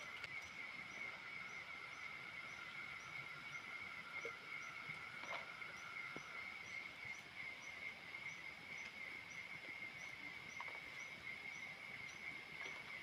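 Chorus of night insects calling steadily: one continuous high trill, a lower trill that drops out about halfway through, and a faint chirp repeating about twice a second. A few faint ticks sound over it.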